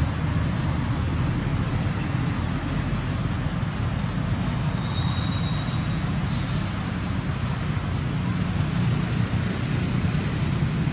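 Steady low outdoor background rumble at an even level, with a brief faint high tone about five seconds in.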